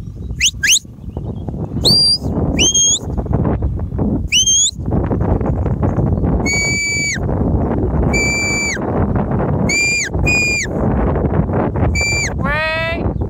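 A sheepdog handler gives whistle commands. First come two quick rising whistles, then three whistles that rise and level off. From about six seconds in there are five held, level whistles that each drop at the end. Near the end a sheep bleats once over steady wind rumble on the microphone.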